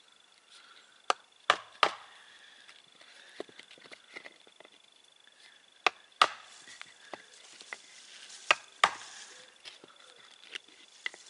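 Old, blunt steel wood chisel working inside a drilled hole in a wooden block: about eight sharp knocks, several in close pairs, with quieter scraping between them.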